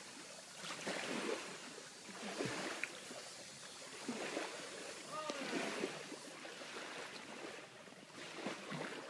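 Faint distant voices over a steady low haze of lake water and wind.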